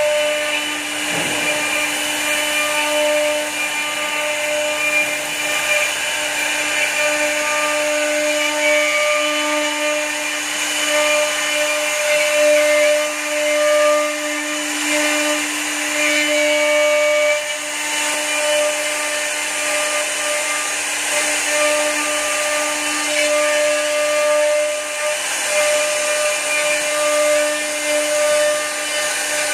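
Multi-head rotary-axis CNC wood router running, its row of spindles carving turning wooden blanks. The spindles make a steady pitched tone over the noise of the bits cutting wood.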